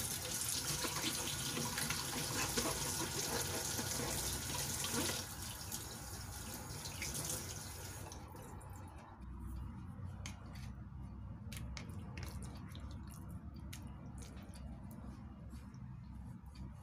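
Kitchen tap running into a stainless steel sink, the water splashing over vegetables and raw chicken as they are rinsed. The flow stops about halfway through, leaving scattered drips and light clicks.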